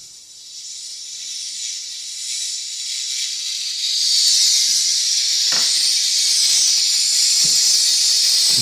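B2 Audio Rage H1-Neo 1-inch neodymium tweeter, driven by a car amplifier, playing a very high-pitched, hiss-like sound. The sound grows louder over the first few seconds, then holds steady. A couple of faint knocks come in the second half.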